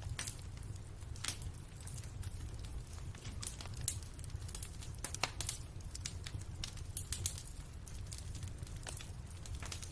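Fireplace crackling: irregular sharp pops and snaps of burning wood over a steady low rumble of the fire.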